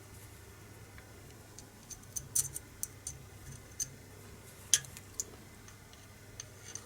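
A few small, sharp metallic clicks and taps, irregularly spaced, as the trigger and its pins are fitted into an old Chinese B3 air rifle's trigger assembly.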